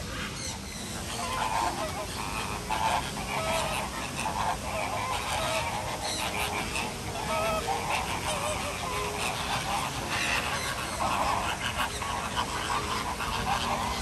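A flock of American flamingos honking: many short calls overlapping, with new ones every fraction of a second.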